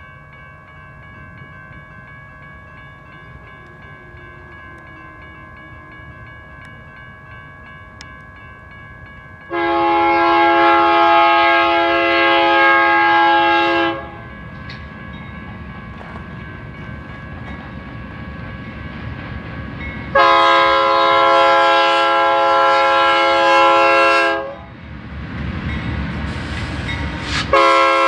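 A BNSF freight train's diesel locomotives pass close by with a low rumble, sounding a multi-chime air horn. The horn chord is faint at first, then comes two long loud blasts and a short one near the end, the pattern of a grade-crossing warning. The rumble of the locomotives and wagons swells after the second blast.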